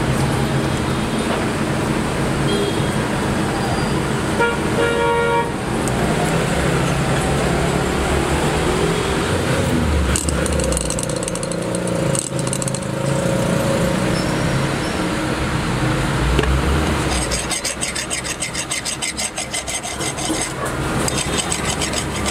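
Steady street traffic noise with vehicles running, and a vehicle horn sounding once for about a second, about five seconds in. Near the end a fast, even rattle runs for about three seconds.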